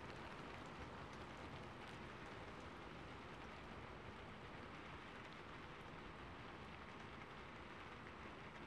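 Faint, steady rain falling on a rooftop, with scattered small drop ticks: a recorded rain ambience track.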